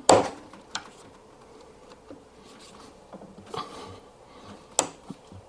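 Faint scraping and rubbing with a few sharp clicks as a steel hook tool is worked under a Miele washing machine's rubber door seal to pull it free of the drum. The sharpest click comes near the end.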